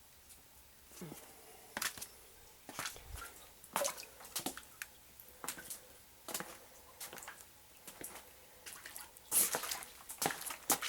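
Water dripping and plopping into standing water at an irregular pace, from rainwater leaking in through a basement window; the drops come a little faster and louder near the end.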